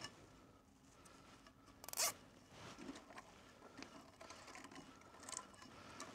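A plastic cable tie being pulled tight: one short ratcheting zip about two seconds in, followed by faint handling clicks and rustles.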